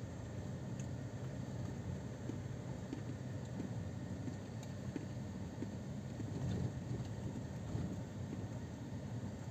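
Steady low rumble of a car driving slowly over a dirt track, heard from inside the cabin, with a few faint ticks.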